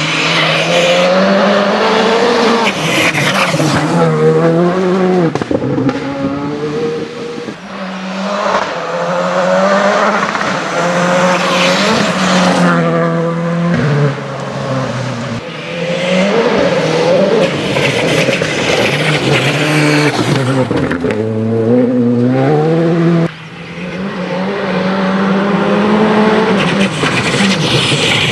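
Škoda Fabia Rally2 Evo rally car's turbocharged 1.6-litre four-cylinder engine driven hard on a gravel stage. It revs up and falls back again and again as it shifts through the gears, and the sound breaks off abruptly a few times.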